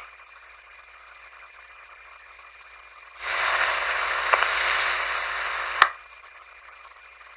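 Police radio scanner: a low hiss, then about three seconds in a transmission keys up as a loud burst of static with no voice. It holds for about two and a half seconds and ends in a sharp squelch-tail click.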